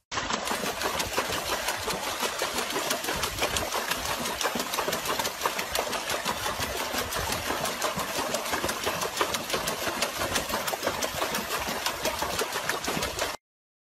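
Water splashing and churning without a break as a dog paddles its front paws rapidly in a plastic tub of water. The sound cuts off suddenly near the end.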